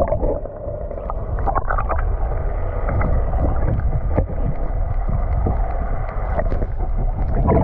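Steady low rumble of a fishing boat at sea, with a few light knocks scattered through it.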